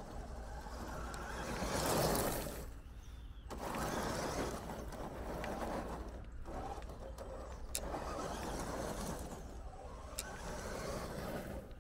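RC crawler truck driving over gravel, its tyres crunching on the stones, in three stretches with short lulls between them; loudest about two seconds in, with a few small stone ticks later on.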